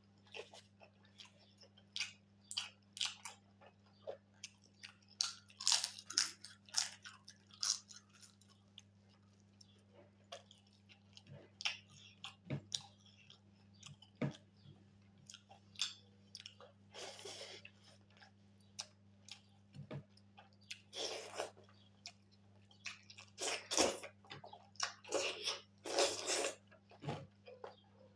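Close-up chewing and biting of pork and rice, with irregular wet smacks and crunchy clicks throughout.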